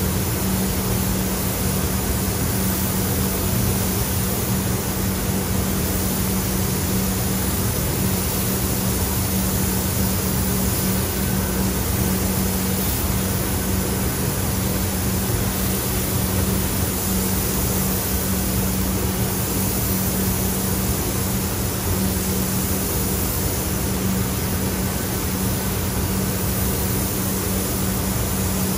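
Steady rush of air in an automotive paint spray booth, with a constant low hum from the booth's ventilation fans, while a gravity-feed spray gun lays on clear coat.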